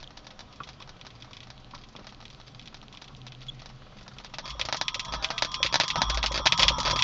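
Car audio system crackling and popping like popcorn, a rapid run of small clicks through the speakers. About four and a half seconds in, louder program audio comes in, still broken up by the same crackle. This is a fault in the audio feed from the aftermarket in-dash DVD player to the stereo, which the owner has not yet traced.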